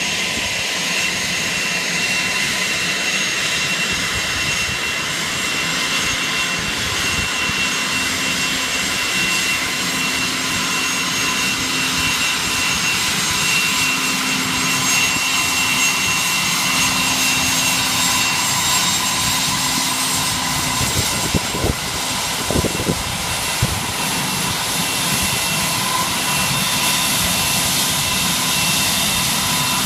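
WhiteKnightTwo mothership's four Pratt & Whitney Canada PW308A turbofan jet engines running at taxi power as it rolls past: a steady jet rush with several high, steady whining tones. A few brief knocks about two-thirds of the way through.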